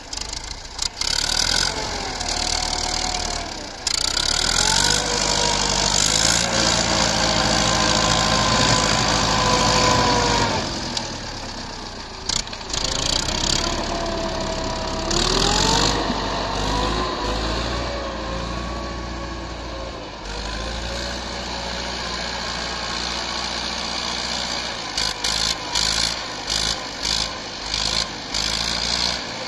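YuMZ-6 tractor's four-cylinder diesel engine working under load as it ploughs through deep snow, its pitch climbing and falling several times with the throttle. Near the end the sound turns choppy.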